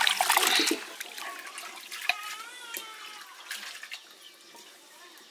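Water splashing loudly for about the first second, then settling to a softer, steady running trickle.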